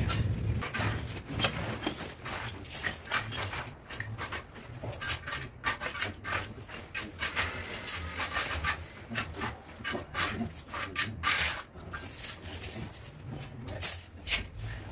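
Handwork on a marble stair installation: irregular scraping, rubbing and small clicks as stone, mortar and a tape measure are handled and dragged against the marble.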